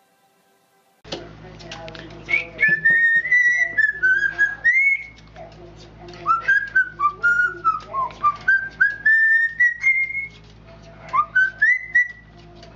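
A parrot whistling a tune in gliding, pitch-bending phrases, in three runs starting about a second in, over a steady low hum.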